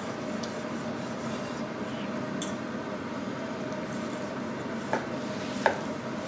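A knife sawing back and forth through a crusty roast pork on a wooden cutting board, a rasping rub, with a few sharp clicks of knife and carving fork, the sharpest near the end. A steady hum runs underneath.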